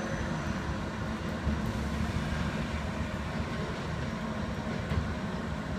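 Kyoto Tango Railway diesel railcar engine running, a steady low rumble.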